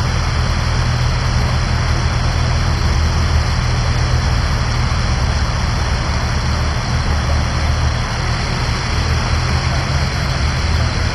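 Off-road 4x4's engine running steadily, a low drone, over the constant rush of water from a small waterfall.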